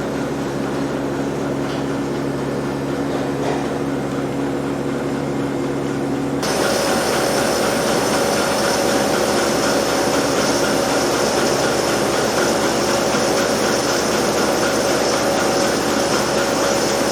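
Steady hum of dairy barn machinery running during milking, carrying a few steady tones. About six seconds in it steps up louder and brighter and holds there.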